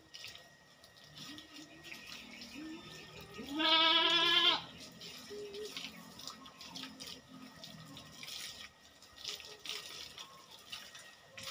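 A goat bleats once, a wavering call of about a second, over the low running and splashing of water from a garden hose as the goat is washed.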